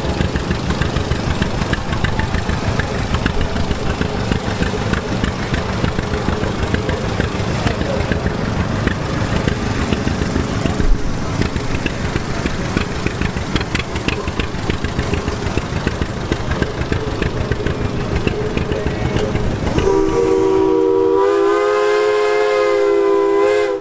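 An engine running close by with fast, even exhaust beats. Near the end a steam whistle blows a chord of several tones at once for a few seconds, then cuts off suddenly.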